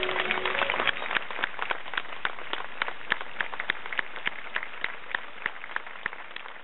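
Crowd applauding, with a few nearby claps standing out about three times a second; the applause dies away toward the end.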